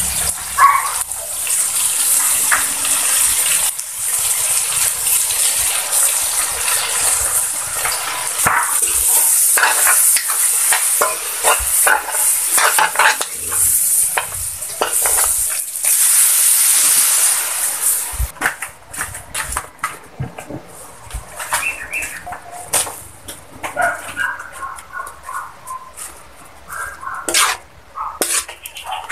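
Vegetables sizzling in hot oil in an aluminium wok while a metal spatula stirs and scrapes against the pan. The sizzle is loud and steady at first and dies down after about eighteen seconds, leaving scattered spatula clinks and scrapes.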